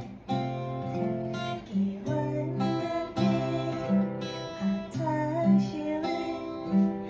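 Acoustic guitar playing a song in C, chords picked and strummed over a repeating bass-note pattern.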